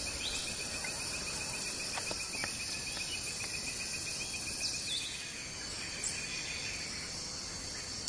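Dawn chorus of tropical rainforest insects: a steady high buzzing with a fast pulsing trill over it that stops about five seconds in, and a few short bird chirps.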